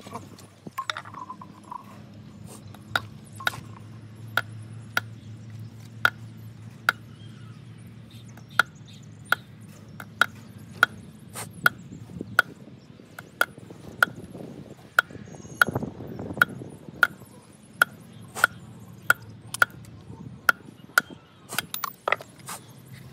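Hammer blows on metal, repeated at a steady pace of one to two a second, each strike ringing briefly.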